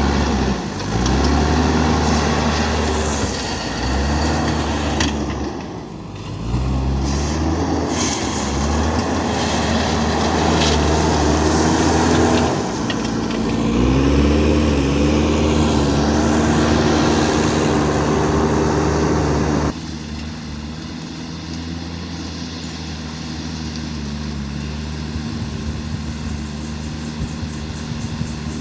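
Diesel engine of a JCB backhoe loader at work, revving up and down again and again under load. About two-thirds of the way through the sound cuts abruptly to a steadier, quieter engine run.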